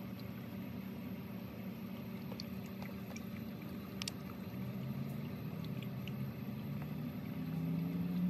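Motor oil being poured from a bottle through a homemade funnel into the engine's oil filler, over a steady low hum that rises in pitch near the end, with a few faint clicks.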